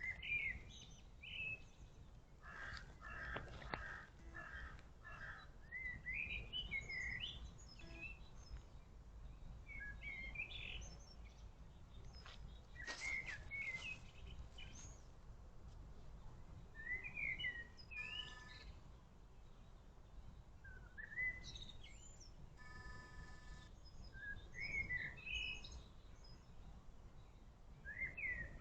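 Small birds chirping and singing in short, quick phrases over a steady low rumble, with two brief buzzy calls in the second half.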